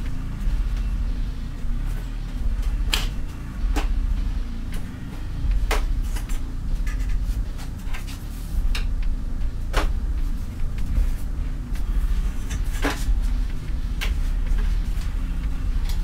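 Scattered sharp plastic clicks and knocks as the Dyson CR01 washing machine's front panel and detergent drawer are worked loose from their clip-in tags, over a steady low rumble.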